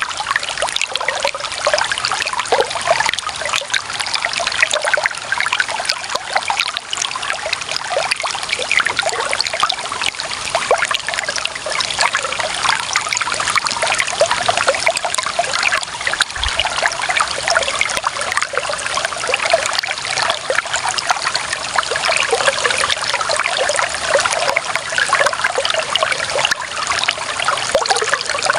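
Running water trickling and splashing steadily. The sound is a bright, even babble of many small splashes without deep rumble.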